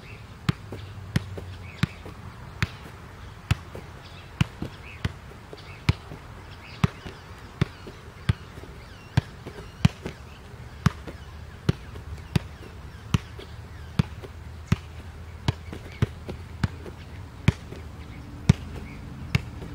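A soccer ball being juggled on one foot: a steady run of sharp thuds, a little faster than one a second, each one a kick sending the ball back up.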